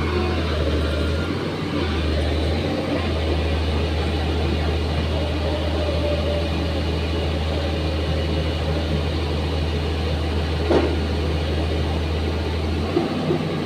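Excavator's diesel engine running steadily under load, with a constant low rumble and one short sharp clank about eleven seconds in.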